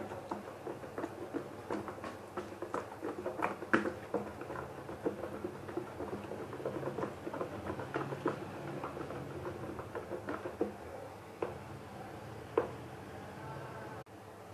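A silicone-coated whisk stirring a thick yogurt and mayonnaise marinade in a bowl: a run of irregular light clicks and wet taps, thinning out near the end.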